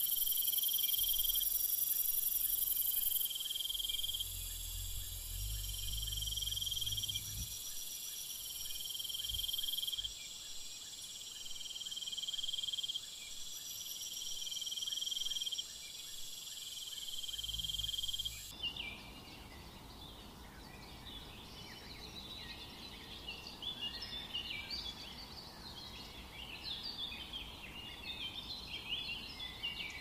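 Ambient insect chorus: a shrill, steady chirring with a trill that swells and fades every couple of seconds. About two-thirds of the way through it cuts over to a quieter bed of scattered bird chirps.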